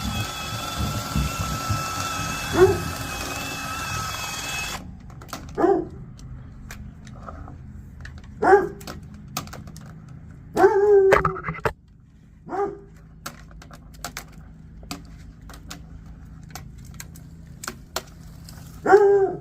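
A machine runs with a steady hiss and a whine, then cuts off abruptly about five seconds in. After that a dog barks several times, spread out, among scattered clicks and knocks.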